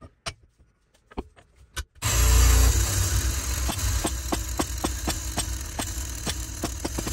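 A few light metal clicks as parts are set in a shop press, then about two seconds in the press's hydraulic pump starts and runs with a steady low drone and about four or five ticks a second, driving the ram down to press a bearing out of its housing; it stops suddenly near the end.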